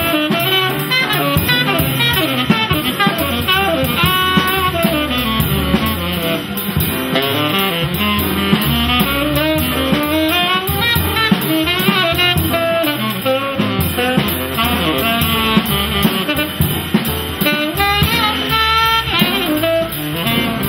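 Live small jazz combo: a tenor saxophone plays quick melodic runs over bass and guitar accompaniment.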